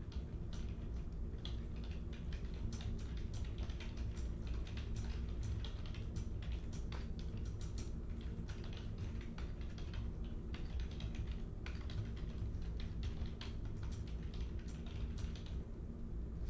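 Typing on a computer keyboard: quick, irregular key clicks in runs with short pauses, over a steady low hum.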